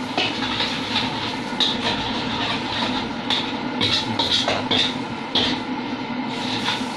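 Noodles being stir-fried in a wok: a metal spatula scraping and clacking against the pan in irregular strokes about once a second, over a steady background noise of cooking.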